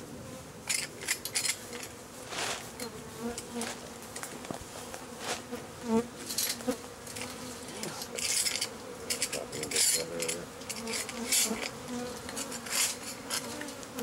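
Africanized (killer) honeybee colony buzzing steadily in a sewer manhole, with irregular scraping sounds from a long-handled tool working honeycomb off the inside of the concrete shaft.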